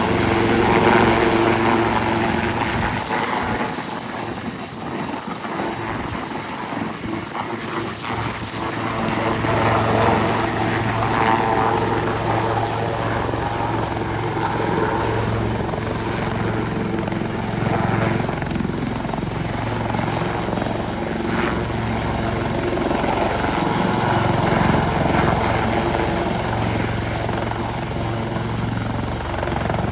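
Westland Lynx helicopter flying in, its rotors and twin turboshaft engines running steadily; the sound eases a few seconds in, then grows louder again and holds.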